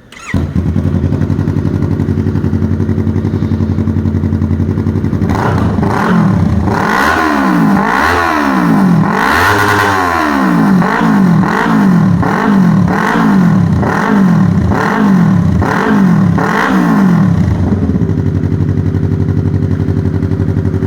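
Yamaha R3's parallel-twin engine starting up and idling through a full 2-into-1 stainless steel exhaust with its dB killer baffle fitted. From about six seconds in it is blipped a dozen or so times in quick succession, the biggest rev around the middle, then it settles back to a steady idle.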